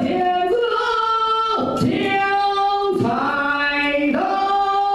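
A man singing unaccompanied in a high voice, holding long drawn-out notes of about a second each and stepping from one pitch to the next.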